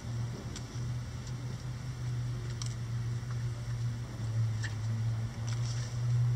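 A steady low hum runs throughout, with a few short, sharp taps of chickens pecking at a hanging cabbage.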